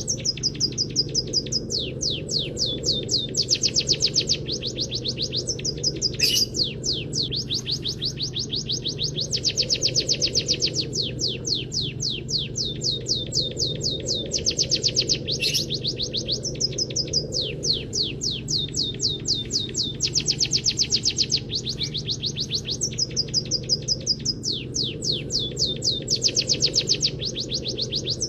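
A caged munia (peking / emprit kaji) singing canary-style song: long, fast trills of rapidly repeated sweeping notes, phrase after phrase without pause, over a steady low hum.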